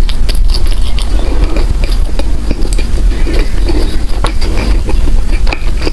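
Close-miked eating sounds: bread being chewed with wet smacks and many small clicks, over a steady low hum.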